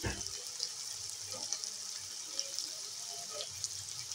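Chopped onion, garlic and green chilli sizzling in hot oil in a kadhai, a steady high hiss with light crackling, left to fry unstirred.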